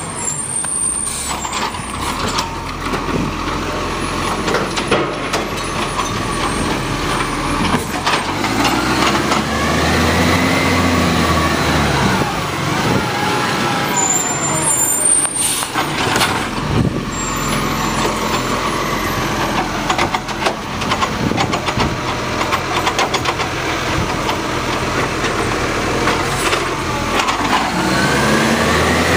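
Side-loading garbage truck running close by: its diesel engine idles, then revs up and back down about nine seconds in and again near the end. A few sharp knocks come in between.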